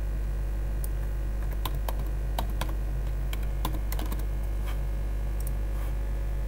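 Typing on a computer keyboard: scattered, irregular key clicks, most of them between about one and five seconds in, over a steady low electrical hum.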